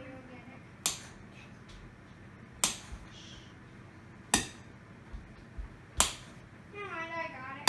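Knife cutting thin slices from a block of butter, the blade knocking sharply on the plate below at a steady pace, about once every second and a half to two seconds.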